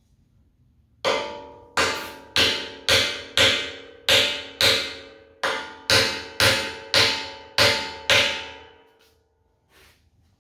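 Hammer blows driving a wedge to nudge a heavy 3/8-inch steel firebox into line: about a dozen sharp strikes, roughly two a second, each leaving the steel ringing.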